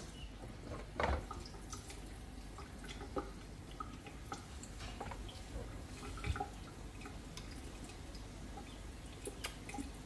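Faint, scattered small clicks and taps, irregular and a few per second at most, over low steady room noise.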